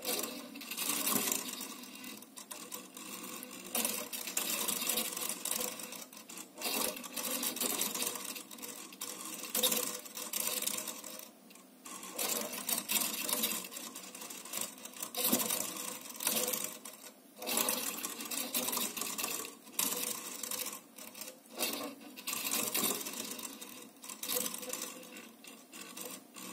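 Metal ball rolling and rattling on the clear plate of a servo-tilted ball-and-plate balancer, mixed with the whir of the servo motors, the noise rising and falling every second or two as the plate keeps steering the ball back and forth.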